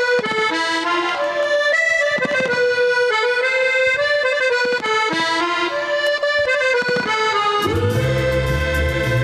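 Music played on accordion: a melody of steady held notes, with a bass and band accompaniment coming in near the end.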